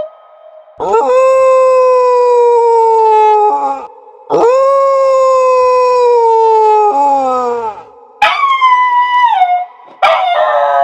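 A dog howling: four long howls, each rising quickly and then sliding slowly down in pitch. The third is shorter and higher, and falls off in steps.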